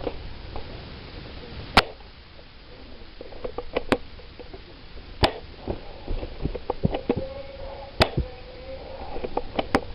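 Sharp single clicks or snaps at irregular intervals of a second or two, with softer ticks and rustling in between.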